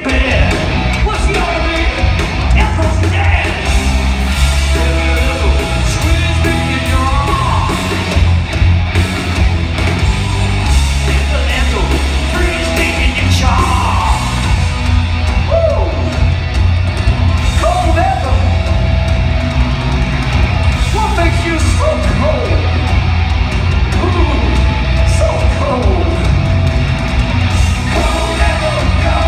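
Live hard rock band playing loudly: electric guitars, bass and drums with a sung, shouted lead vocal, heard from the audience in a large hall.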